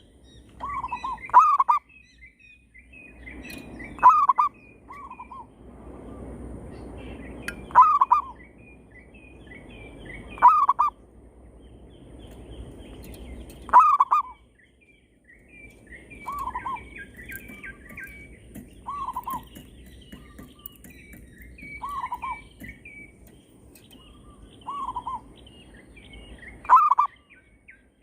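Zebra doves (perkutut) cooing in short trilled phrases, one every two to three seconds, a decoy bird and wild birds answering each other. Smaller birds chirp higher and more quietly in the background.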